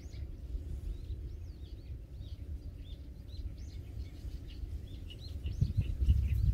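Small birds chirping repeatedly, many short high calls that rise and fall in pitch, over a low steady rumble that grows louder and uneven near the end.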